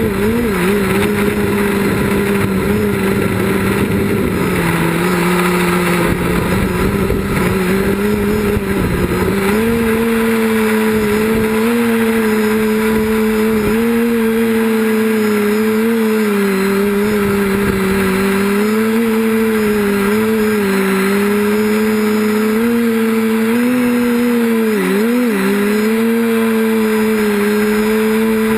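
Quadcopter's electric motors and propellers buzzing steadily, the pitch wavering up and down as the throttle changes and dipping sharply for a moment near the end.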